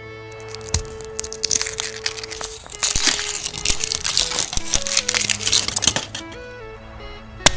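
Foil wrapper crinkling and crackling as a chocolate surprise egg is unwrapped by hand, with a few sharp clicks, over background music.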